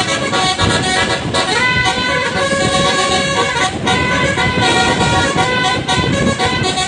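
Basuri 'telolet' bus horn, a multi-trumpet musical air horn, playing a tune. Several horn tones sound together and step from note to note, loud and without a break.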